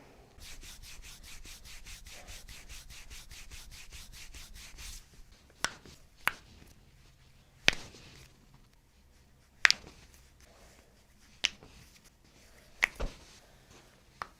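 Fast, even rubbing strokes, about seven or eight a second, for roughly the first five seconds. Then about seven sharp, separate clicks come irregularly over the next eight seconds, the loudest two near the middle.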